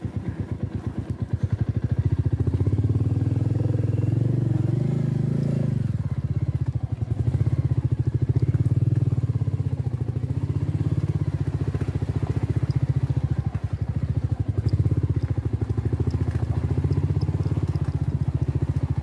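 Motorcycle engine running as the bike is ridden over a rough, rocky dirt trail, its revs rising and falling with the throttle and its exhaust a rapid low pulsing.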